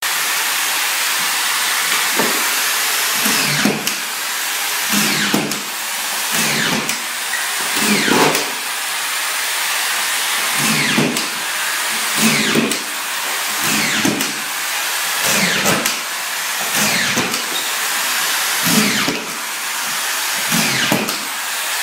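Corded power screw gun running continuously while screws are driven one after another through new plywood into the subfloor. About a dozen times, roughly every second and a half, the motor's pitch drops under load and there is a short grinding burst as a screw goes in.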